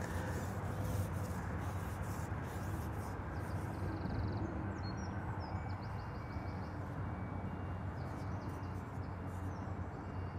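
Steady low background rumble with faint bird calls, a few short chirps and trills in the middle.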